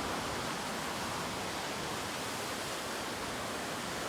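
Waterfall rushing: steady, unbroken noise of falling water.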